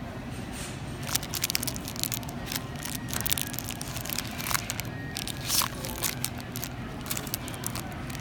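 Cellophane candy wrapping crinkling in irregular crackles as it is handled, starting about a second in, over a steady low hum.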